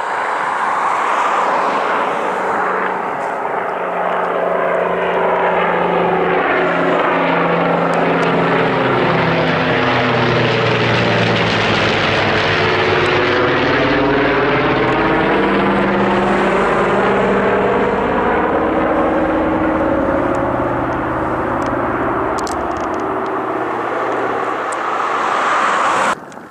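Canadair CL-215 water bomber's twin radial piston engines and propellers passing low overhead. The loud, steady drone builds as the plane approaches, peaks as it passes overhead about halfway through, and the engine note drops as it flies away. The sound cuts off suddenly just before the end.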